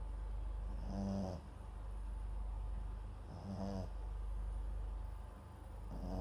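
A Papillon and Japanese Chin mix dog snoring in its sleep: short pitched snores, each about half a second long, roughly every two and a half seconds, with a third starting near the end.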